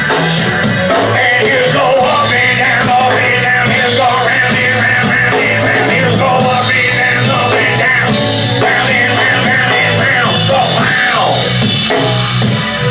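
Rock band playing a song without vocals: a steady bass and drum groove under a bending lead melody line.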